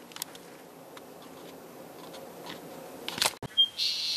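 A few faint clicks and taps in a quiet room, then a sharper cluster of clicks just after three seconds. After that comes a brief high bird chirp outdoors.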